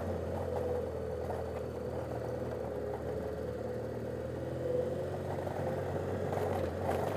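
BMW F800GS motorcycle's parallel-twin engine running steadily while riding, heard from a helmet-mounted camera.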